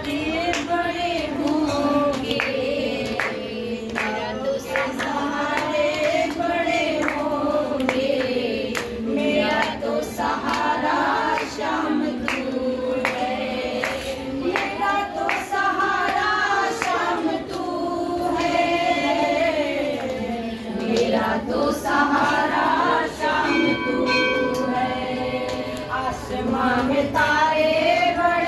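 A group of devotees, women's voices among them, singing a Hindu devotional bhajan together, with sharp percussive beats running through the singing.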